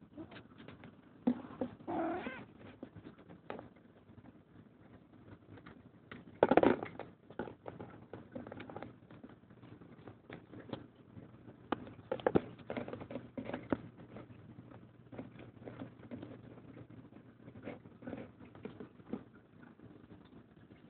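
A domestic cat calling in several short bouts, the loudest about six and a half seconds in, with light clicks scattered between the calls.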